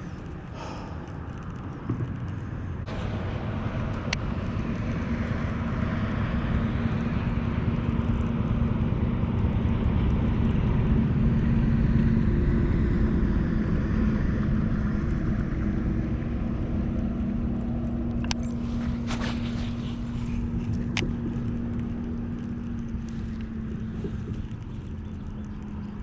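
A motorboat's engine passing by on the lake: a steady drone that grows louder to a peak about halfway through, then fades away, its pitch sinking slightly as it leaves.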